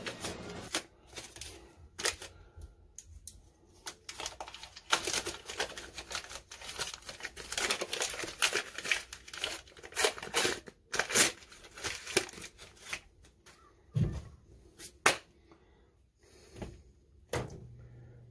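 Paper wrapper being peeled off a stick of butter: irregular crinkling, tearing and crackling of the waxed paper, busiest for most of the time and thinning out about three quarters of the way through. A few soft knocks follow near the end.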